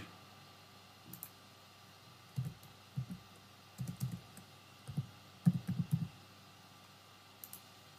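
Computer keyboard being typed on: a scattered run of about a dozen soft keystrokes, mostly in quick little clusters, as digits are entered into a calculator.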